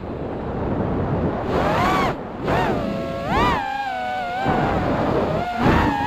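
FPV quadcopter's brushless motors whining, the pitch rising and falling again and again as the throttle changes, over rushing wind noise that surges louder a few times.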